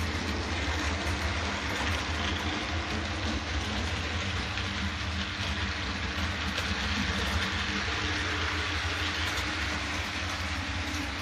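Model railway train, a steam-outline locomotive hauling a rake of coaches, running along the layout track: a steady low motor hum with the light rolling rattle of wheels on the rails.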